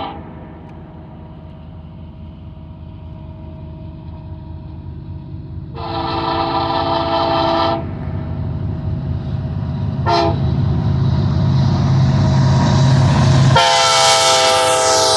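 An EMD SD70ACe, the lead locomotive of a Union Pacific intermodal train, sounds its multi-note air horn: the tail of one blast, a long blast, a short toot, then another long blast, in the long-long-short-long pattern of a grade-crossing signal. Underneath, the diesel engines rumble and grow steadily louder as the train approaches.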